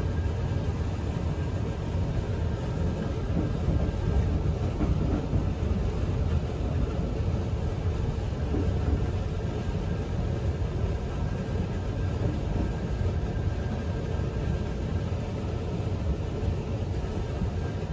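Running noise of an Odakyu Romancecar electric train heard from inside at the front observation seat: a steady low rumble of wheels on rail, with a faint steady whine above it.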